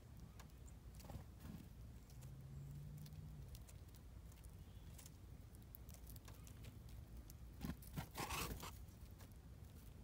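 Small birds feeding on seed in snow: faint low wind rumble with scattered small pecking clicks, a faint low hum for about a second and a half, and about eight seconds in a short flurry of wingbeats as a bird flies in.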